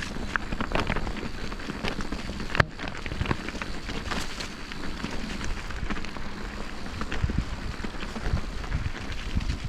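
Bicycle ride noise on rough ground: a rumble of tyres with a dense run of small clicks and rattles, and one sharp knock about two and a half seconds in.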